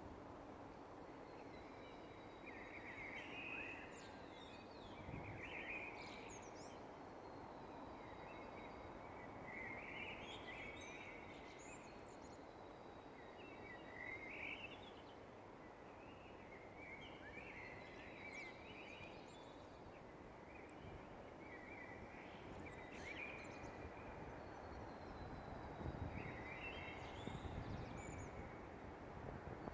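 Dawn birdsong: birds singing short chirping phrases every couple of seconds, faint, over a steady low background noise, with a low rumble swelling near the end.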